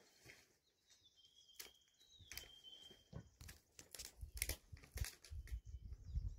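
Faint handling noise from a handheld camera: scattered clicks and rubbing over a low rumble. A thin high whistling tone holds for about two seconds, starting about a second in.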